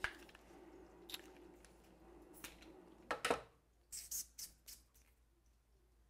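Bicycle inner tube being lightly inflated through a pump head on its valve: faint handling clicks and knocks, ending with the pump head coming off the valve and a few short hisses of air about two-thirds of the way in.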